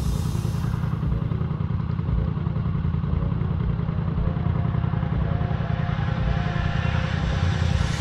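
ATV engine running steadily under way, a continuous low drone with an even pulse and no change in pace.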